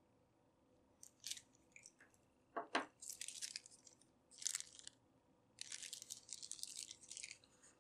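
Small clear plastic parts bag crinkling in the hands in several short bursts. A couple of light knocks come about a third of the way in, the loudest sounds.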